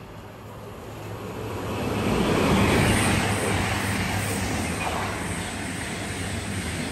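Class 220/221 Voyager diesel multiple unit passing: a steady low engine hum under a rush of wheel and rail noise. The noise swells to its loudest about two to three seconds in, then stays loud, easing slightly toward the end.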